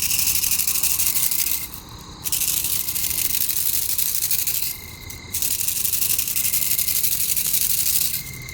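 Night insects, crickets, trilling loudly in long stretches of about three seconds with brief pauses between them. A faint steady whistle-like tone comes through in the pauses.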